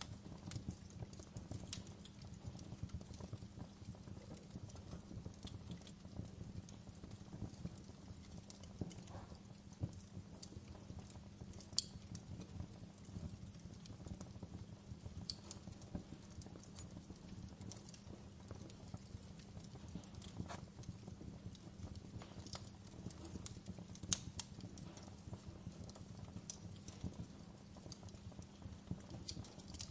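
Wood fire burning in a fireplace, crackling with irregular pops and snaps over a steady low rumble of the flames. Two sharper pops stand out, about twelve seconds in and again about twenty-four seconds in.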